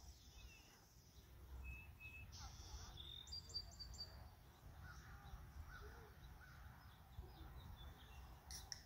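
Faint outdoor ambience with a steady low rumble and a few short, high bird chirps between about one and a half and four seconds in.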